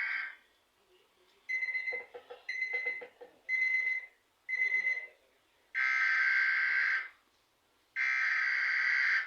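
Emergency alert system alarm tone: the end of a long electronic tone, then four short beeps about a second apart, then two long tones of just over a second each, with silent gaps between.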